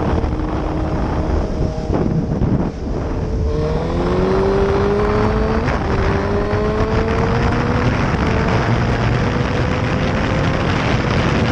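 2005 Suzuki GSX-R750's inline-four engine pulling on the road, its pitch climbing slowly from a few seconds in with a brief dip around the middle, over steady wind rush on the microphone.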